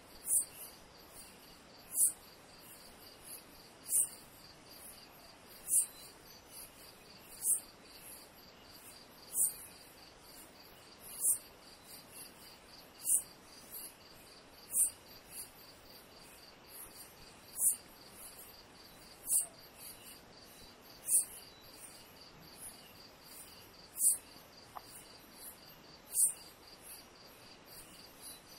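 Insects chirping: a steady, fast high trill runs throughout, with a louder, shriller chirp repeating about every two seconds.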